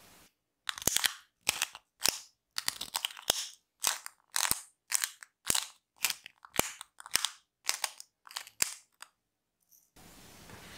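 About fifteen short, crisp crunching crackles, roughly two a second, each sharp at its start, stopping about a second before the end. The track around them is otherwise silent.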